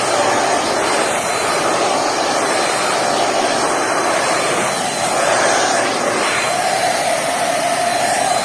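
Bissell Pet Hair Eraser corded handheld vacuum running steadily, its motor whine and airflow rising and falling slightly in pitch.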